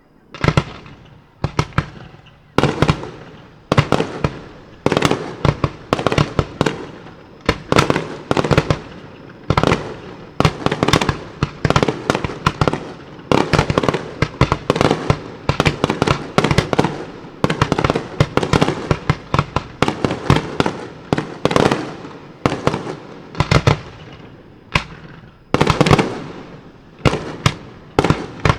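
Aerial firework shells bursting in rapid succession, loud sharp bangs several a second, often in quick clusters, each with a short echoing tail. The barrage starts abruptly right at the outset.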